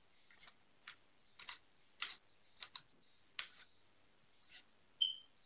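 Light, sharp clicks of small metal parts being handled as a rebuildable dripping atomiser is set up to read its coil resistance, about eight at irregular spacing, then a short high beep about five seconds in.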